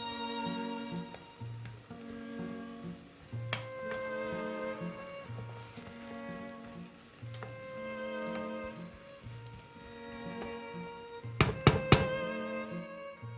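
Potato and onion frico sizzling as it fries in a pan, under background music with a slow, repeating bass line. Three sharp knocks come close together near the end, and the sizzle cuts off just before the end.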